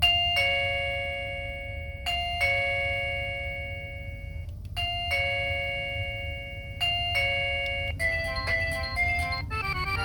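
Chime 9 battery chime speaker, powered at 4.5 V, playing an electronic two-tone ding-dong four times, about two seconds apart, then a quick tune of short notes near the end. It is working again after its corroded battery contact spring plate was repaired.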